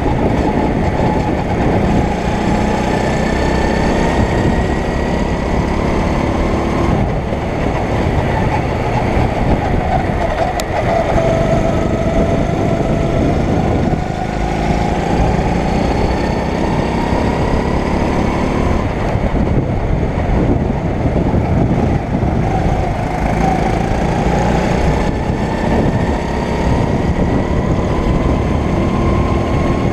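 Single-cylinder four-stroke 9 hp engine of a rental go-kart running hard, heard from on board, its pitch rising and falling over a few seconds at a time as the driver works the throttle through the laps.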